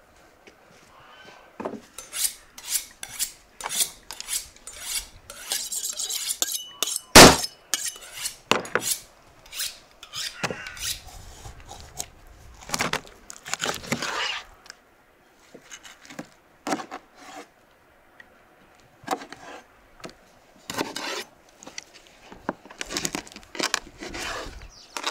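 Cooking prep handling: an irregular run of scrapes, rubs and clinks of utensils and dishes, with one sharp knock about seven seconds in.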